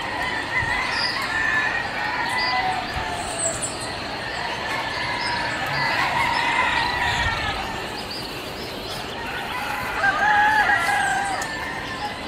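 Several roosters crowing, their calls overlapping; one crow is louder about ten seconds in.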